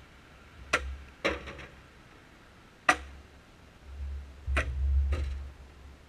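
Splitting axe striking a metre-long red oak log: about five sharp knocks a second or so apart, one followed by a few quick smaller knocks, as the log splits into halves along a drying crack. A low rumble swells and fades between the strikes.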